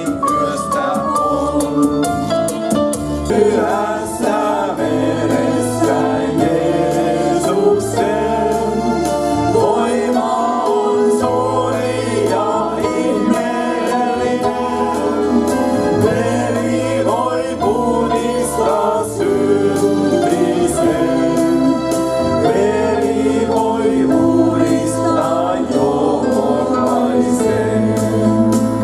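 A group of men and women singing a worship song together into microphones through a PA, with electronic keyboard accompaniment and a steady beat.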